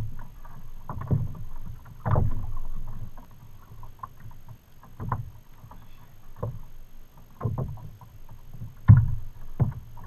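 Irregular thumps and knocks on a plastic fishing kayak, about eight in ten seconds, as an angler strains against a hooked fish on a spinning rod.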